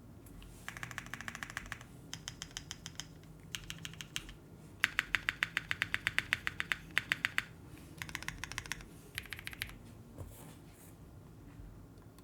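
Typing on a SINGA Kohaku mechanical keyboard with an aluminium plate, GMK keycaps and lubed Black Cherry Pie switches. Quick runs of key clacks, about eight to ten a second, come in bursts with short pauses between them. The longest and loudest run is in the middle, and the typing stops a couple of seconds before the end.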